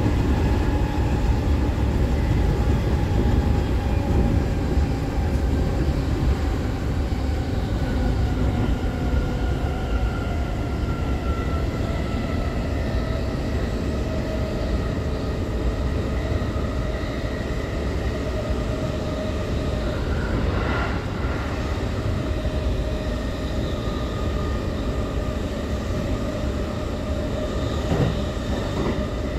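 Interior running noise of a JR East E531-series trailer car (SaHa, no motors) travelling at speed: a steady rumble of wheels on rail, with thin whining tones that drift slowly in pitch. A couple of brief knocks come about two-thirds of the way through and near the end.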